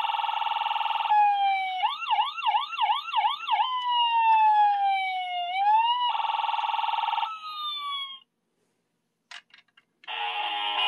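Toy police helicopter's electronic siren sound effect from a small speaker: slow rising and falling wails, a fast up-and-down yelp, and two harsh buzzing horn blasts, stopping about eight seconds in. A few clicks follow, then a different electronic sound with a tune starts near the end.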